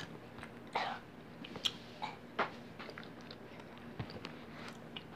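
A few faint, short clicks and soft rustles at irregular spacing, over a low steady hum.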